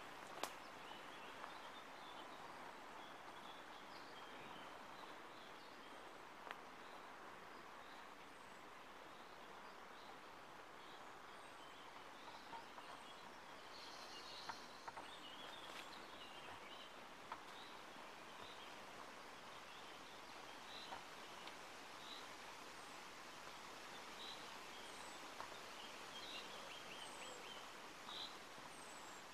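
Faint woodland ambience: a low steady hiss with frequent short bird chirps and calls, more of them toward the end, and a few sharp clicks.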